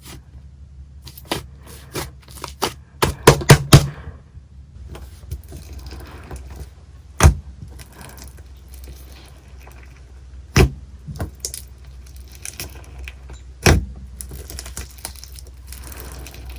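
Slime being played with by hand, making sharp clicks and pops over faint crackling: a quick run of clicks in the first four seconds, then single louder pops about every three seconds.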